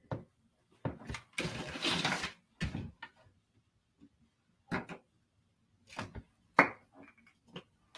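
Handling noise from paper and a pen on a wooden table: scattered light taps and knocks, with one brief sliding rustle about a second and a half in.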